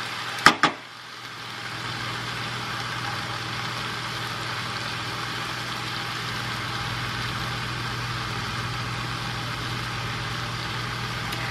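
Cabbage sautéing in a pan, a steady sizzle over a low steady hum. Two sharp knocks come about half a second in.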